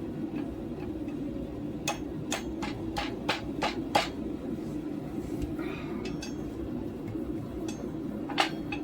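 Hand hammer striking a hot railroad spike on the anvil: a quick run of about seven ringing blows two to four seconds in, then a few single blows, over a steady low rumble.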